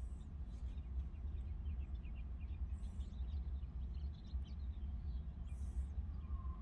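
Faint, scattered bird chirps over a low steady rumble, with a faint tone coming in near the end.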